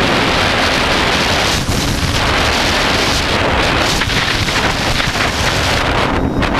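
Wind rushing over the microphone of a GoPro Hero3 on a TBS Discovery quadcopter in flight, mixed with the quad's motors and propellers. A loud, steady noise with no clear pitch.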